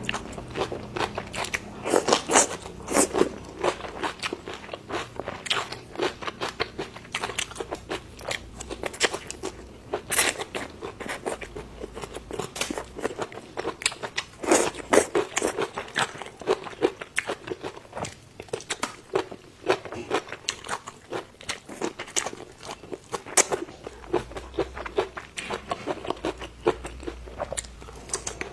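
A person eating close to the microphone, chewing with frequent irregular crunchy bites.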